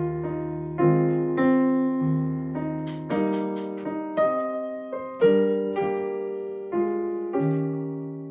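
Background piano music: slow notes and chords struck about once every half second to a second, each fading away.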